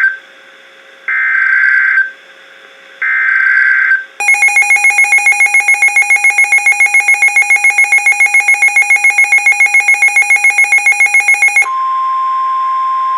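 Emergency Alert System tones on NOAA Weather Radio for a tornado warning. First come short screeching bursts of SAME digital header data about a second apart. Then a buzzy electronic alert tone pulses about seven times a second for some seven seconds. Near the end, this gives way to the steady single-pitch 1050 Hz weather radio warning alarm tone.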